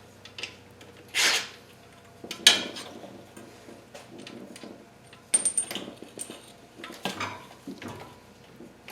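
Short metallic clinks and clatters, in several separate bursts, as hand tools and loose engine parts are handled and set down.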